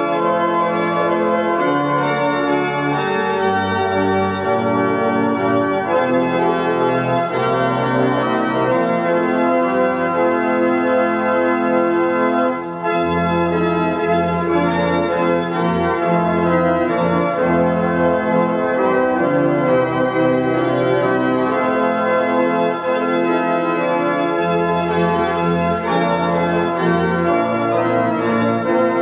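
Organ playing a hymn in held chords that change every second or so, with a short break about thirteen seconds in.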